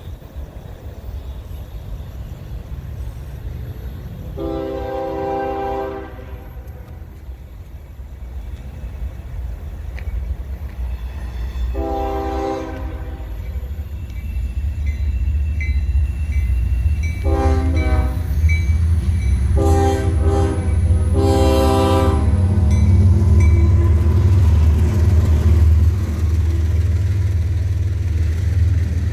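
Freight train's multi-chime air horn sounding five blasts as it approaches: a long one about four seconds in, another about eight seconds later, then three in quick succession. Under the horn, the low rumble of the locomotives and cars grows louder until a double-stack intermodal train is rolling past near the end.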